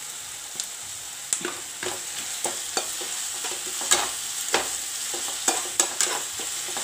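Onions and chopped tomatoes frying in oil in a nonstick kadai while a spatula stirs them: a steady sizzle with irregular clicks and scrapes of the spatula against the pan.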